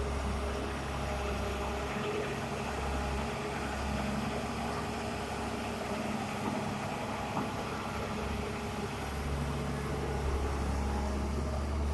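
Diesel engine of heavy earthmoving machinery running steadily, a low drone with a few faint knocks.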